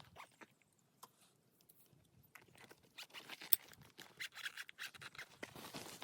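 Close scratchy rustling and scraping with scattered sharp clicks, growing busier after about two and a half seconds, with one loud click about three and a half seconds in.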